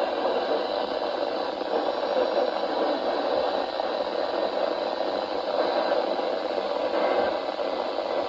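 Steady hiss of static from a weather radio receiver with no broadcast voice coming through.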